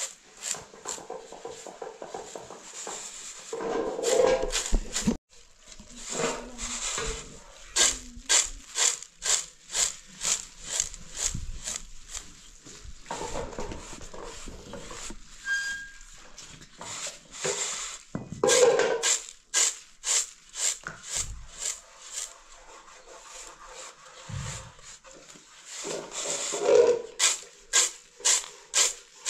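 Grain rubbed by hand against a large metal tray and shaken in it: a rhythmic rasping of kernels on metal at about two to three strokes a second, loosening the husks. A few louder swishes come where the grain is tossed or swirled, about 4, 18 and 26 seconds in.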